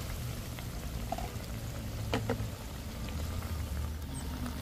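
Chili balado sauce with oyster mushrooms simmering and bubbling in a wok over a gas flame, over a steady low hum, with a few sharp ticks about two seconds in.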